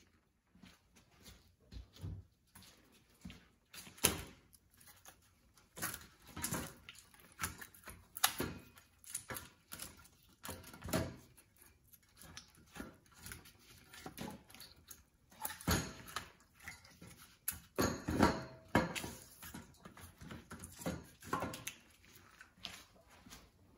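Split firewood being stacked by hand into the metal chute of a hand-crank firewood bundler: irregular knocks and clatters of wood on wood and on the chute, the loudest about four seconds in, about eight seconds in, and around eighteen to nineteen seconds in.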